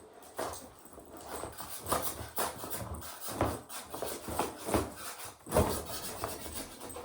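Pitbull puppy tugging at a glued-down carpet square, panting, with irregular rubbing and scraping of carpet on the floor.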